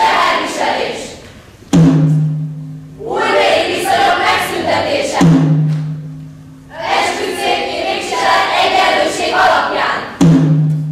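A deep, pitched drum struck three times, each beat ringing for about a second and a half, and after each beat a group of voices calling out together.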